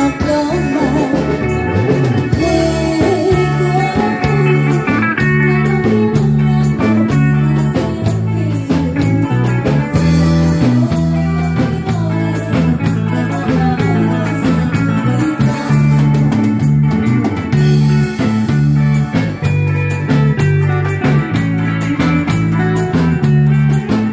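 A live band plays amplified music: a woman sings into a microphone over electric guitar and a repeating low bass line.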